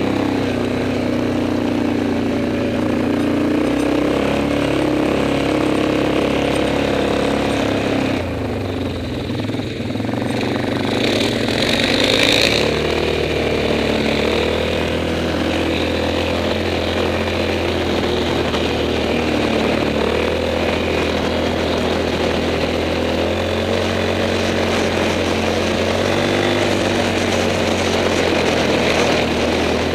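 Single-cylinder four-stroke ATV engine running while riding along a dirt trail. The engine note dips about a third of the way in as the throttle is eased off, then picks back up and holds steady.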